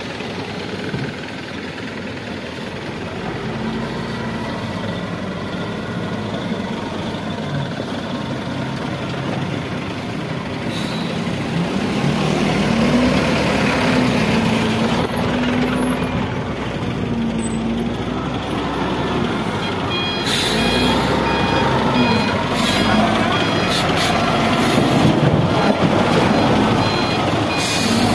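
Diesel engine of an X-MA wheel loader working, revving up and down as it carries and lifts a bucket of soil. A reversing alarm beeps steadily through the second half.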